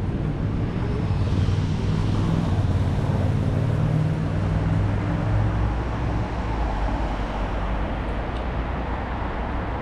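City street traffic: motor vehicle engines running close by, a steady low hum whose pitch drops lower about halfway through.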